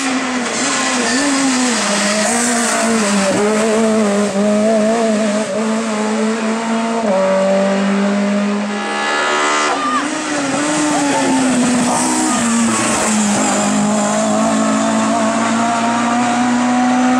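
Race car engine at high revs, climbing a hill-climb course under hard acceleration. Its pitch steps up and down several times as the driver shifts gears and lifts for corners.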